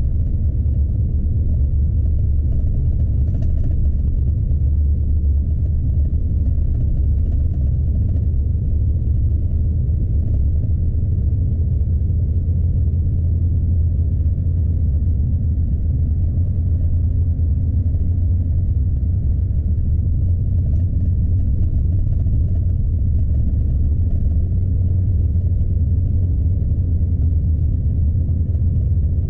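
Steady low rumble of a Scania truck's engine and tyres heard from inside the cab while driving on a snowy road.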